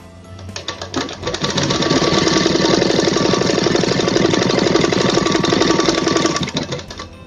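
Sewing machine stitching at speed, a fast even rattle of needle strokes that starts about half a second in and winds down to a stop near the end. It is running a straight line of stay-stitching about a quarter inch from the cut edge of a saree corner.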